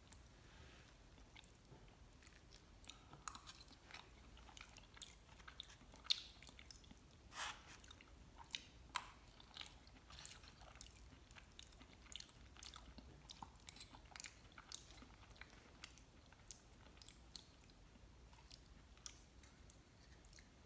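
Quiet chewing of sauced tortilla chips (mole chilaquiles), with many short, scattered crunches and clicks, some of them a fork on the food and the takeout box.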